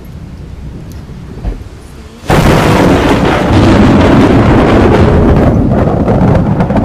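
Rainstorm with a low rumble, then a sudden loud thunderclap a little over two seconds in that rolls on as a long, loud rumble.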